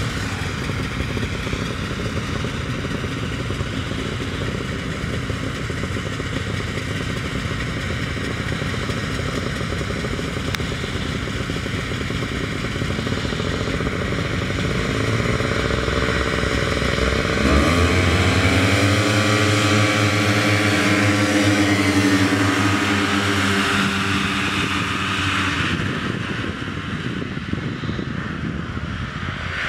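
A pack of vintage two-stroke snowmobiles idles together on the start line. About 17 seconds in they rev and launch at full throttle, the engine pitch climbing sharply and the sound growing louder. It then fades as the sleds race away.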